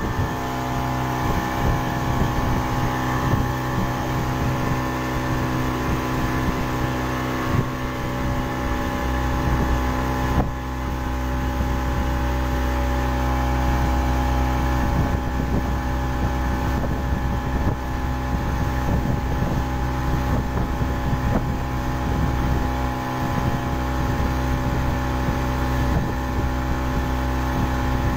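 A 40 hp outboard motor running steadily with the boat under way, its even engine note mixed with the rush of water from the wake.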